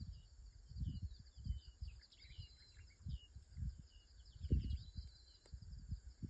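Wild birds chirping with many short, repeated calls and a few brief whistles over a steady high hiss, while wind gusts buffet the microphone; the loudest gust comes about four and a half seconds in.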